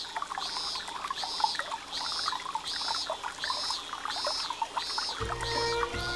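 Water trickling and dripping under a high, even chirp that repeats steadily, about four calls every three seconds. Music comes in near the end.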